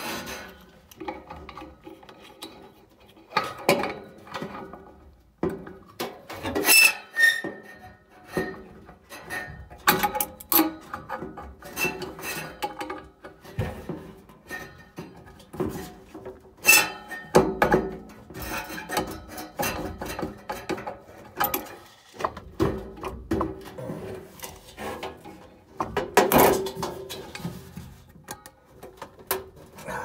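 Irregular metal clinks, knocks and scraping of a wrench being worked on a gas furnace's blower wheel hub and shaft, mixed with rubbing close to the microphone. The wheel is loose on its shaft and stuck in a groove worn into it.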